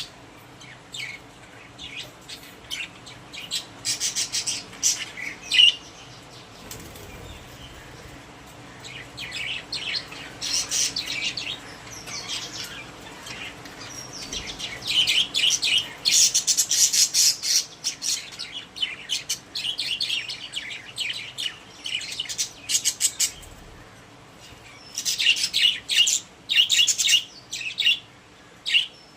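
Pet budgerigars chattering and chirping in bursts of rapid, high notes, with short lulls between the bursts.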